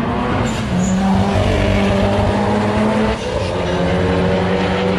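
A car engine running hard, held at steady high revs, with a short dip about three seconds in before it picks up again.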